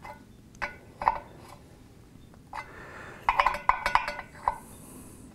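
Small metal wrench clinking on a motorcycle valve stem's lock nut as the nut is snugged down by hand: a few separate clicks, then a quick run of ringing metallic clinks about three seconds in.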